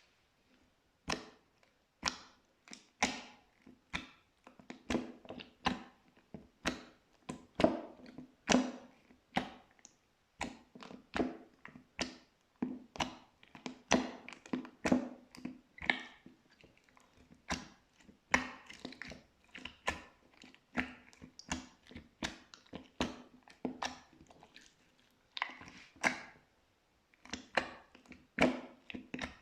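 Pink glitter slime being pressed and squished, giving a run of sticky pops and crackles, several a second at uneven spacing with brief pauses.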